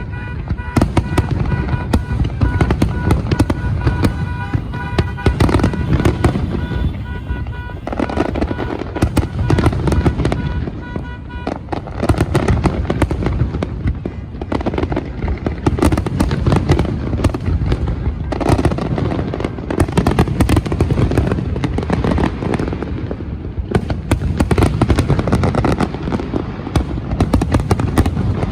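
Fireworks display: a dense, continuous barrage of bangs and crackling with low rumble. Steady high tones sound through roughly the first eleven seconds.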